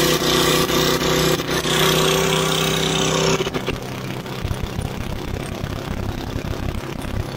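Briggs & Stratton Quantum single-cylinder lawnmower engine running loud and fast with its fan shroud removed. About three and a half seconds in it drops to a quieter, rougher run.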